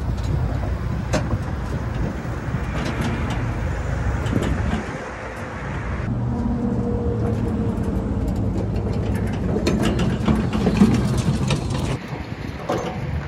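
Steady road-traffic noise from a nearby highway, with scattered knocks and rattles from a battery-powered wheelbarrow dolly being driven off a wooden trailer and across gravel.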